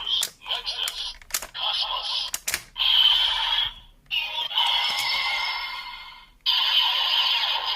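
Ultraman Z Riser toy reading medals in turn: sharp plastic clicks, each followed by a short burst of recorded voice and electronic effect from its small speaker. About six and a half seconds in, a longer continuous fusion sound effect starts.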